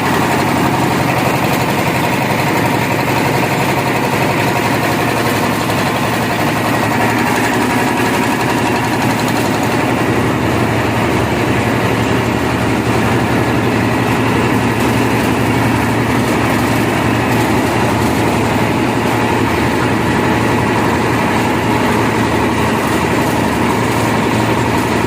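Concrete mixer machine with hopper running steadily, a constant engine drone with no change in speed.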